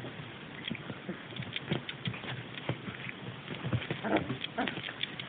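Three-week-old puppies play-biting and mouthing each other as their teeth come in: scattered soft clicks and scuffles, with a few short squeaky puppy grunts about four seconds in.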